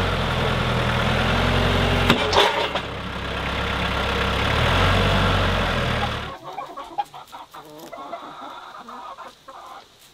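Branson compact tractor's diesel engine running under load as it pushes a shed on its pallet forks, its pitch shifting a couple of times, with a brief clatter about two seconds in. The engine sound stops about six seconds in, leaving chickens clucking.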